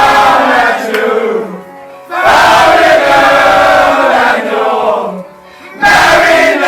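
A group of men chanting and singing loudly in unison, in repeated phrases broken by short pauses: a team's celebration chant after winning a cup final.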